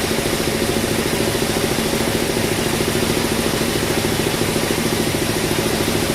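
Bandsaw sawmill machinery running steadily, a loud engine-like drone with a fast, even throb and a steady hum.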